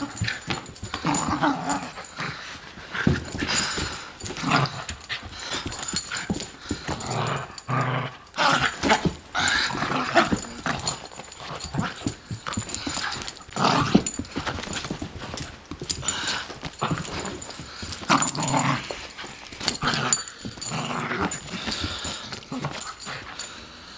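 Beagle puppy's play growls and yips, in short irregular bursts, as it wrestles with and mouths a man's hand.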